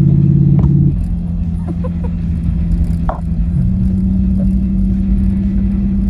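Demon-swapped Jeep Wrangler's supercharged Hemi V8 running as the Jeep drives, a steady engine drone heard inside the cabin. The pitch drops suddenly about a second in, then steps up slightly a few seconds later.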